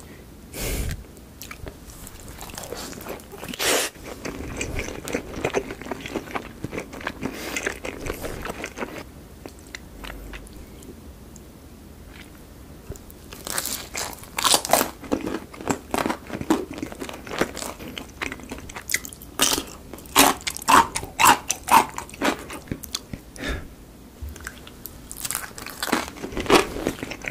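Close-miked biting and chewing of Pizza Maru's Maru Five pizza: crisp crunching bites and wet chewing, a quieter stretch of chewing in the middle, then denser, louder crunches in the second half.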